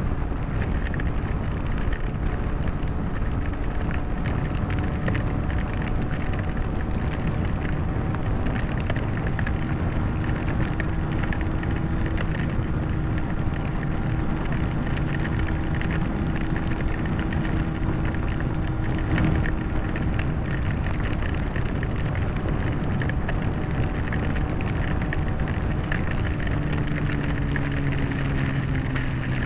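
Yamaha R1 sport motorcycle riding at a steady speed through heavy rain: a constant rush of wind and rain over a faint, even engine note, which drops in pitch near the end as the bike slows.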